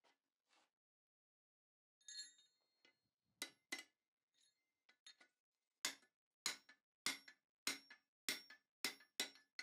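Hammer blows ringing on a tapered round drift being driven through a freshly punched hole in hot round bar over the anvil's pritchel hole. A few scattered blows come first, then from about six seconds in a steady run of blows a little over half a second apart.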